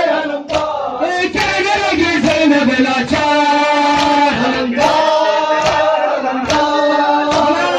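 Male voices chanting a noha, a Shia lament for Imam Hussain, in a drawn-out melody, over sharp chest-beating slaps (matam) about once a second.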